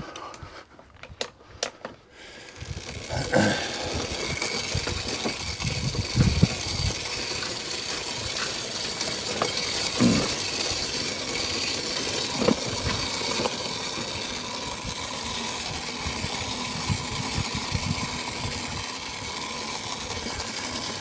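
A few sharp clicks, then a small engine comes in about two seconds in and runs steadily with a faint high whine.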